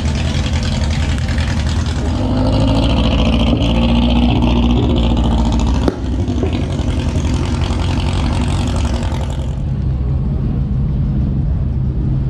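Car engine running steadily with a low, continuous rumble, a little louder from about two to five seconds in, with one short sharp knock about six seconds in.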